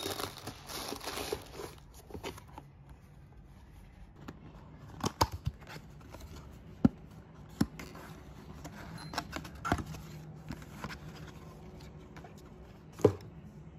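Paper and packaging rustling and crinkling as items are lifted out of a cardboard box, followed by scattered sharp clicks and knocks of products being picked up and set down, the loudest about five seconds in and another near the end.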